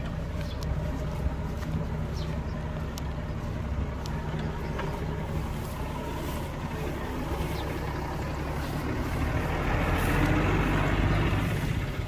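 Heavy diesel construction machinery running with a steady low drone and a few short knocks. About nine seconds in it grows louder for a couple of seconds as the engine works harder, then eases back.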